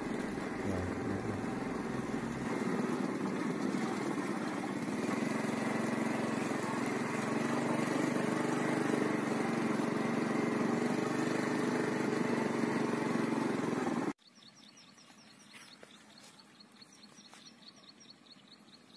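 Motorcycle engine running steadily with road and wind noise, cutting off abruptly about fourteen seconds in. Quiet outdoor background with faint bird chirps follows.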